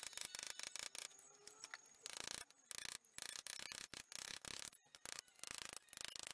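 Chasing hammer rapidly tapping a steel punch, driving 1.5 mm steel sheet bedded in chasing pitch: a quick, even run of light metallic taps that eases off briefly about a second in.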